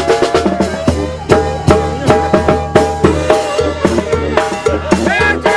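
Tamborazo band playing: a brass melody over a steady beat on the tambora bass drum and cymbal.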